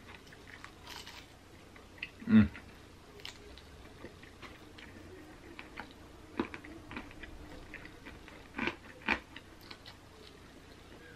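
Close mouth sounds of a man eating chicken wings: chewing, biting and lip smacks as he picks meat off the bone, in scattered short clicks. One louder, briefly pitched mouth sound comes about two seconds in.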